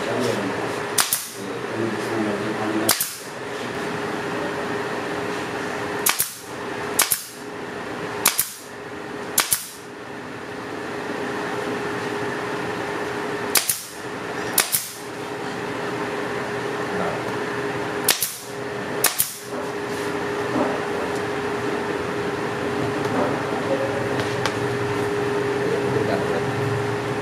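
Pneumatic brad nailer firing about ten times, often two shots about a second apart, driving nails through pine strips into a wooden form. A steady hum runs underneath.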